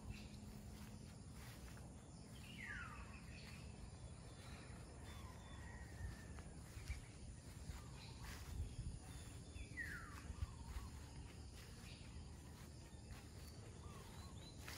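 Faint outdoor ambience in which a bird gives two quick falling calls, one about two seconds in and another about ten seconds in. Under them are a low rumble and a few soft thuds.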